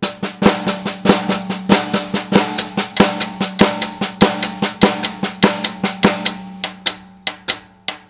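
Snare drum played with sticks in a steady triplet pattern, an inversion of the Swiss Army triplet rudiment with a regular louder accent on each beat and the drum head ringing under the strokes. The strokes thin out near the end.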